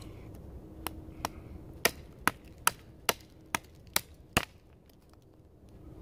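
Schrade SCHF37 fixed-blade knife chopping into a hand-held stick of wood: about nine sharp chops at two to three a second, stopping after about four and a half seconds.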